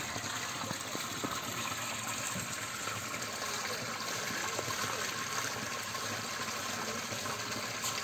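Water gushing steadily out of the top of a free-flowing borewell pipe into a concrete basin and spilling through a spout into a second basin. The water rises under its own pressure with no pump: an underground stream escaping through the bore.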